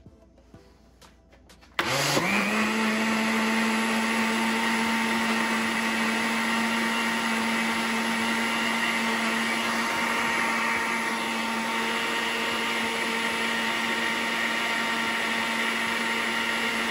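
Countertop blender switching on about two seconds in, its motor pitch rising quickly to full speed, then running steadily while it blends a jug of carrot and beetroot juice.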